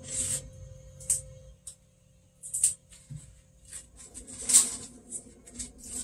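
Several short rubbing and scraping noises of plastic being handled on a refrigerator, each a separate stroke, with the loudest about four and a half seconds in.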